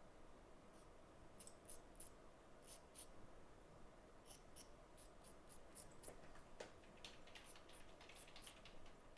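Faint scraping of a knife blade cleaning the edges on an iPhone 8 Plus logic board: a string of short, irregular scratches.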